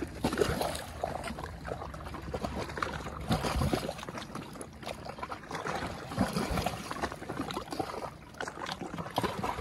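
Lake water lapping and trickling, with irregular small splashes and knocks.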